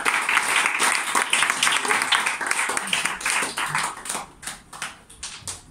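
Small audience applauding: dense clapping that thins out to a few scattered claps about four seconds in and stops near the end.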